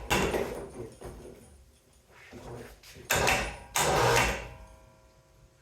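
Handling noise as a heavy metal cooling unit (about 79 lb) is slid and set onto a scale: several scraping rushes, the loudest two a little past the middle, then dying away.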